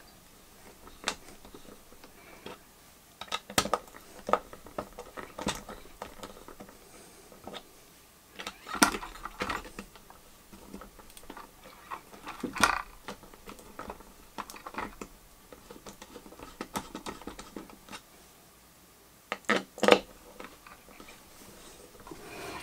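Scattered clicks and taps of a small screwdriver and fingers working the mounting screws of a clear acrylic CPU water block on a motherboard, with a few louder knocks along the way.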